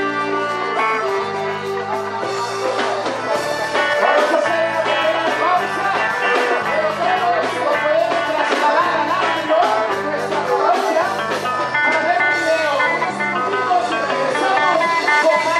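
Music with guitar over a stepping bass line, with a sliding, wavering lead melody and many short sharp hits throughout.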